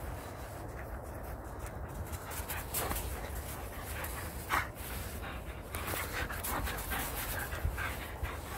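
A whippet-saluki lurcher dog panting as it runs close by through frosty tussock grass, with rustling and crunching footfalls in the grass and a steady low wind rumble on the microphone. One louder crunch comes about halfway through.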